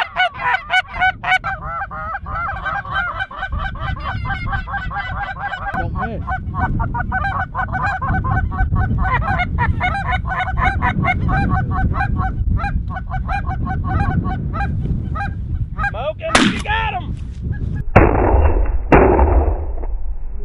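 Hand-held short-reed goose call blown in rapid honks and clucks to bring geese into a decoy spread, over a low rumble that builds after about six seconds. About two seconds before the end, two loud shotgun blasts about a second apart.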